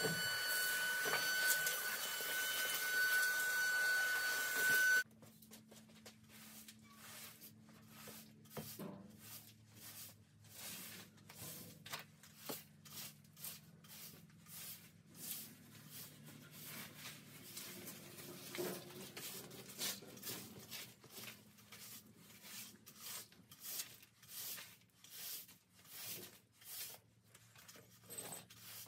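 A pressure sprayer hisses steadily for about five seconds with a thin whistling tone, then cuts off suddenly. After that a broom sweeps a concrete floor in quick, repeated short strokes.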